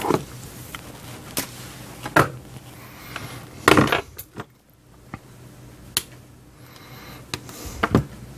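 Small amplifier circuit board with aluminium heat sinks being handled on a tabletop: scattered light clicks and knocks as it is picked up, turned over and set down, the loudest a short clatter a little under four seconds in.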